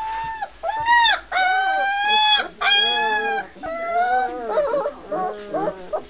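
Three-week-old White Swiss Shepherd puppies crying: a run of high whining cries, each about half a second to a second long, then shorter, overlapping squeaks in the last two seconds.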